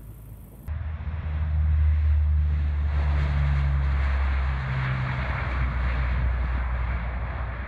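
Engines of a large propeller-driven water bomber running at high power as it rolls along the runway, a loud steady low drone with a rushing hiss above it. The sound starts abruptly under a second in.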